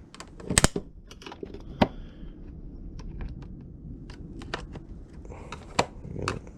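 Sharp plastic clicks and taps from handling a 2005 Nissan Quest instrument cluster while working its plastic cover off its clips. The loudest snaps come about half a second in, near two seconds, and near six seconds.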